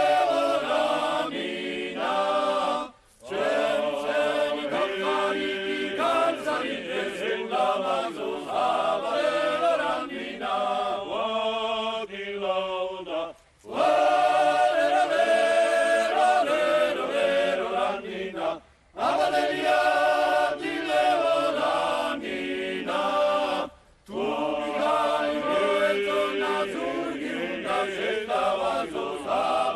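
Georgian male vocal ensemble singing together in several voice parts, phrase by phrase, with short breaks about 3, 13, 19 and 24 seconds in.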